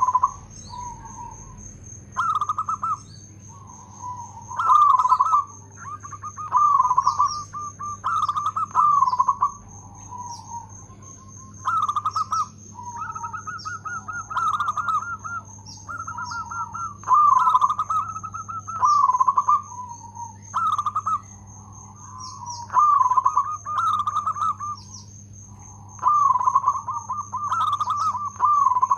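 Zebra dove (local perkutut) singing: a run of short coo phrases made of quick pulses, one after another with brief pauses between them.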